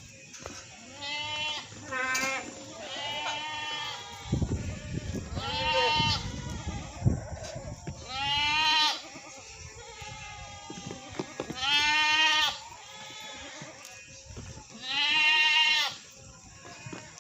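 Goats bleating repeatedly, about eight wavering calls with short pauses between them. A low noise runs underneath for a few seconds about a third of the way in.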